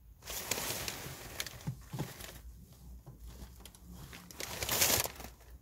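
Rustling and crackling close to the microphone in two stretches, the second shorter and louder, over a faint low hum.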